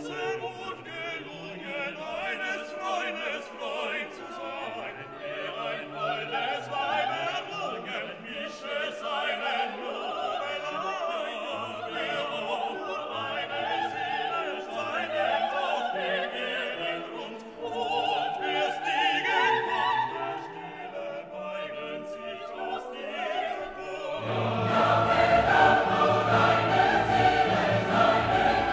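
Classical background music: operatic singing with orchestra, swelling into a louder, fuller choral passage near the end.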